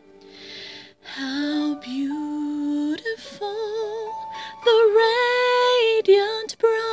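A woman singing a slow worship song solo, holding notes with a clear vibrato, with an audible breath near the start.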